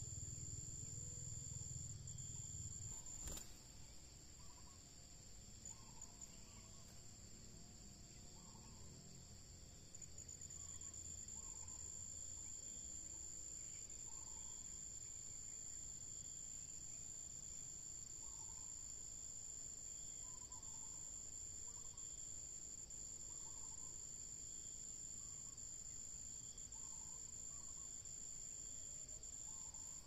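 A steady, high-pitched drone of insects, with faint short chirps repeating every second or two. A low rumble fades out after the first few seconds, and there is one sharp click about three seconds in.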